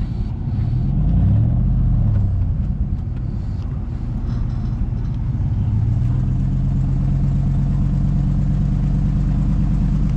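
An engine running, its pitch rising and falling again between about one and three seconds in, then rising once more around five seconds and holding steady.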